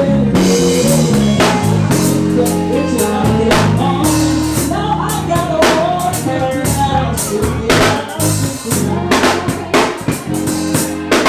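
Live band playing: a drum kit keeping a steady beat over a moving bass line and other instruments.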